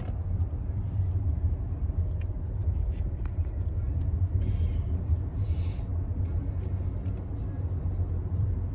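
Steady low rumble of a car cabin on the move, with a few small clicks and a brief high rustle about halfway through.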